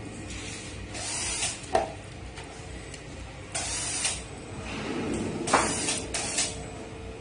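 Plastic wire connectors on an electric scooter's controller wiring being pulled apart by hand: a series of short rustles and scrapes of plugs and wires, with a few sharp clicks, the loudest about five and a half seconds in.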